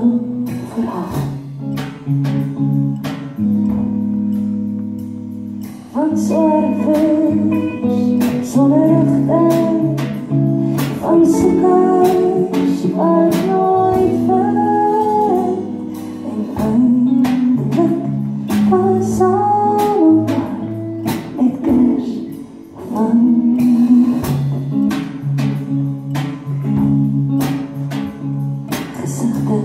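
Live band playing a slow folk song: a woman sings over strummed acoustic and electric guitars.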